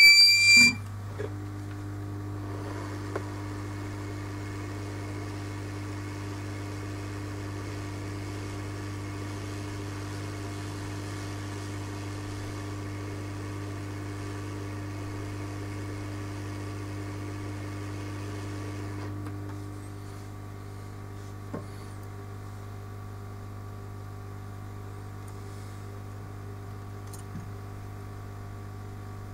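A short electronic beep, then a steady electrical hum with a hiss of blowing air over it. The hiss cuts off about nineteen seconds in, leaving the hum and a couple of faint ticks.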